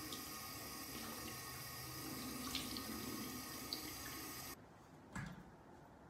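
Bathroom tap running into a sink over hands being washed, a steady splashing hiss that cuts off suddenly about four and a half seconds in. A single low thump follows.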